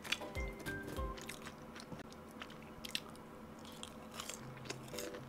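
A person chewing crispy boneless fried chicken: a scatter of short, sharp crunches and crackles of the fried coating as it is bitten and chewed.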